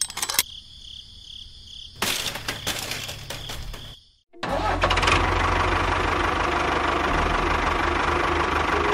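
A small electric motor of a DIY miniature model vehicle starts running steadily after a brief break about four seconds in. Before it there is a high steady tone with a burst of rattling clicks.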